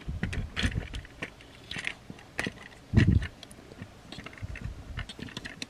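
Plastic parts of a Transformers Optimus Prime action figure clicking and rattling as its joints and pegs are moved by hand during transformation, with a dull knock about three seconds in.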